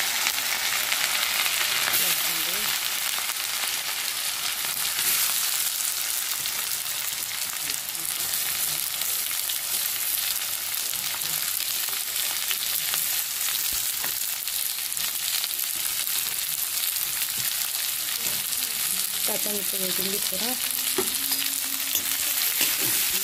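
Hot oil sizzling steadily in a kadhai as green chillies and chopped onions fry, stirred with a slotted steel spatula.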